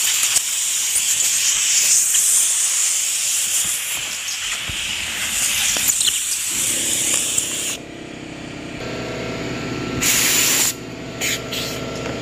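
Compressed air hissing steadily from an air blow gun for about seven seconds. About six and a half seconds in, a motor starts and runs with a steady hum, and near ten seconds there is another short blast of air followed by two brief puffs.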